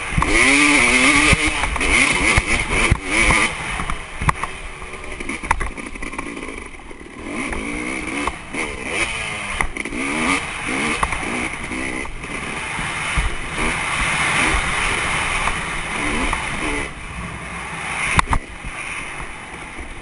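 Dirt bike engine being ridden hard, revving up and easing off again and again so its pitch keeps rising and falling, with scattered sharp knocks.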